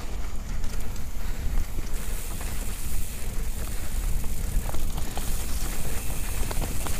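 Wind rumbling on the microphone of a camera riding on a mountain bike going fast down a dirt trail, with tyre noise on the dirt and scattered clicks and rattles from the bike over bumps.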